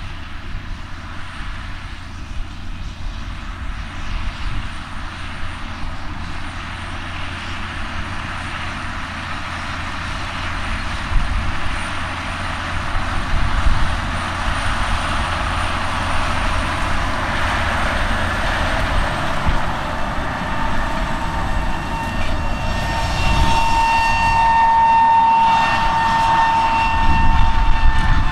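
John Deere 9430 four-wheel-drive tractor's diesel engine running steadily under load while pulling an air drill through the field, growing louder as it draws near and passes. A steady high whine joins in over the last several seconds.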